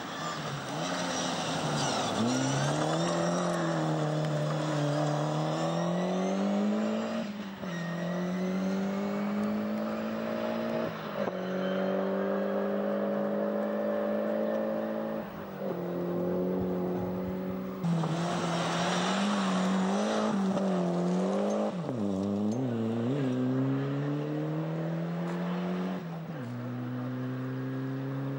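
Rally car engines on a gravel stage, revving hard and changing gear every few seconds, the pitch climbing and then dropping at each shift. About eighteen seconds in a louder rush of noise rises over the engine, and just after it the revs dip and waver before climbing again.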